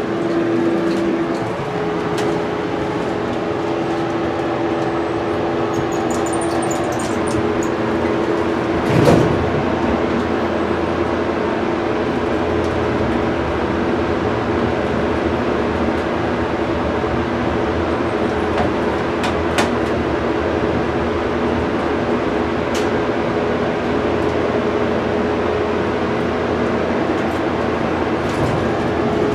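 Steady drone inside a traction elevator cab, its ventilation fan running with a constant hum. There is a single thump about nine seconds in and a sharp click near twenty seconds.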